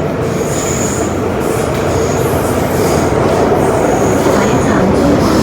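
Metro-Cammell M-Train electric multiple unit running through an underground tunnel, heard inside the car: a loud, steady rumble of wheels and motors, with a thin high squeal from the wheels coming and going several times.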